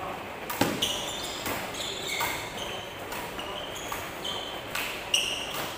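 Badminton rackets striking a shuttlecock in a rally, with sharp hits about half a second in and about five seconds in. Short high squeaks of court shoes on the floor come between the hits.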